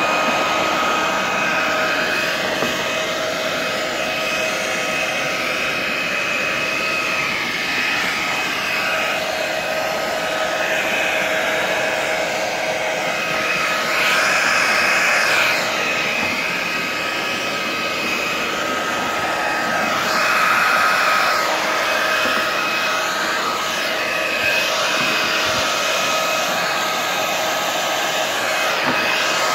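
Hand-held hair dryer running steadily: a rush of blown air with a steady whine from its fan motor. It grows louder for a second or two about 14 and 20 seconds in.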